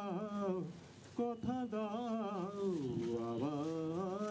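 A man singing unaccompanied into a microphone, holding long notes with vibrato, with a short break about a second in.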